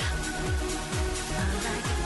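Stock Samsung Metro Duos C3322 ringtone playing electronic dance-style music, with a steady kick drum about twice a second under hi-hats and sustained synth lines.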